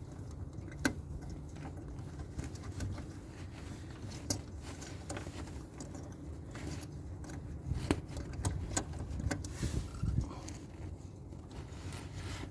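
Scattered small clicks and light rattles of a bulb socket being worked loose from a car headlight housing, over a steady low background rumble.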